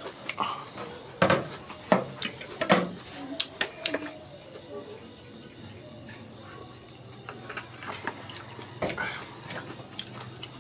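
A cricket trills steadily and high-pitched throughout. Over it come a few sharp clicks about one to three seconds in and once more near the end, from eating mango slices off a plate with a metal fork.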